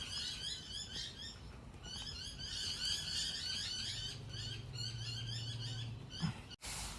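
Small bird chirping in quick, repeated high twitters, with a low steady hum joining about four seconds in.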